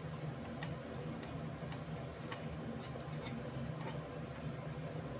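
A plastic spatula scraping and tapping against a metal frying pan as a spice masala is stirred and roasted in oil, giving scattered irregular clicks over a low steady hum.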